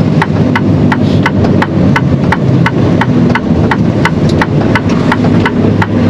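A truck's turn-signal indicator ticking at an even rate, about three ticks a second, over the low, steady running of a Mercedes-Benz Actros tractor unit's engine, heard inside the cab.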